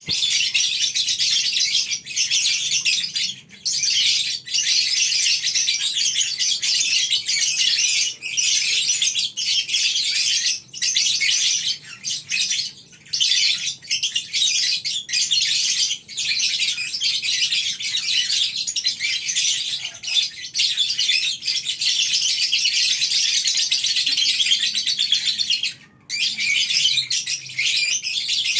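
A colony of lovebirds chattering together in a dense, high-pitched, almost unbroken stream of rapid chirps and trills, the long 'ngekek' chatter, with only a couple of brief pauses.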